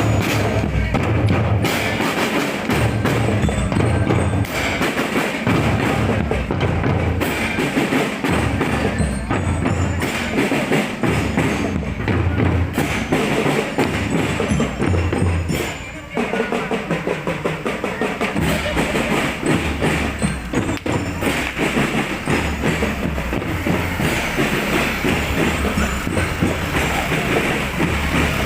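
Music with drums and percussion playing a steady, heavy beat, with a brief dip about halfway through.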